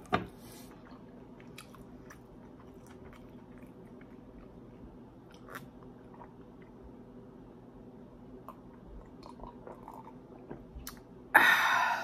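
A person chewing and biting into crispy fried General Tso chicken, with small crunches and clicks. Near the end comes a sudden loud cough.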